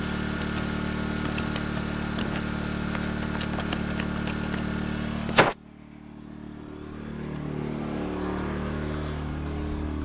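Yamaha MZ80 engine of a small inverter generator running steadily with its smart throttle off, at its higher fixed speed. About five and a half seconds in there is a sharp click, after which the hum drops abruptly and then builds back to a steady level.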